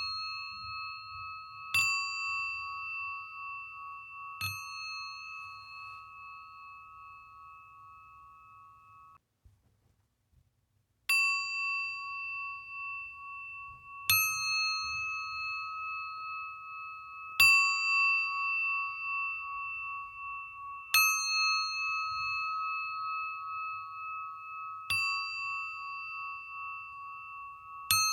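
Singing bowl struck with a mallet about every three to four seconds, each strike leaving a long, slightly wavering ring that overlaps the next. Midway the ring dies away and cuts out for about two seconds before the strikes resume.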